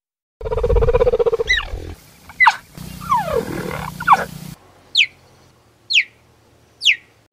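A big cat growling low and loud for about a second and a half. A string of sharp, high calls follows, each falling quickly in pitch, the last three evenly spaced about a second apart.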